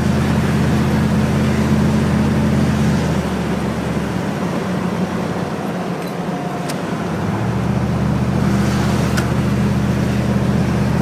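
Truck engine and road noise heard from inside the cab while driving: a steady low hum that eases off for a few seconds in the middle, then comes back.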